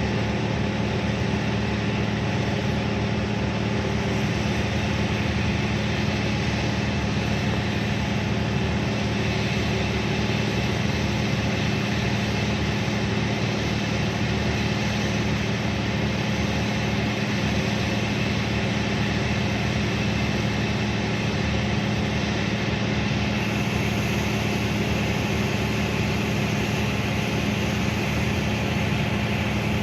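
Heavy diesel engine running steadily with a constant low drone, no change in speed.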